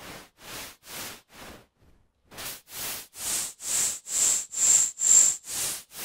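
White noise from FL Studio's 3x Osc synth, pulsing in volume about twice a second under a sine LFO, with a brief break about a second and a half in. From about three seconds in, a sharp high ring sits in the pulses as the resonant filter is swept with its knobs.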